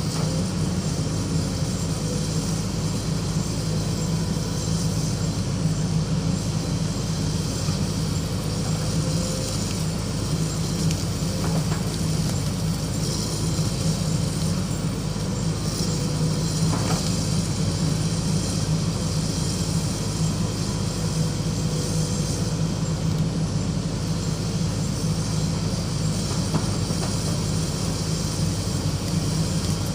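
Excavator's diesel engine running with a steady low drone.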